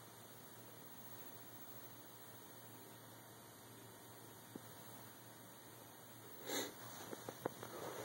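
Faint steady low hum with light hiss, the tone of a quiet room. About six and a half seconds in there is a short breathy rush of noise, followed by a few sharp clicks.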